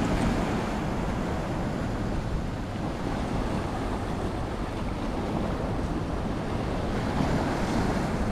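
Sea swell washing and breaking against a rocky shoreline, a steady rush of surf with wind buffeting the microphone.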